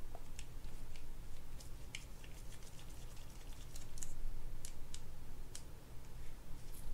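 Faint, irregular small clicks of a precision screwdriver working the side-plate screws out of a spinning reel's body.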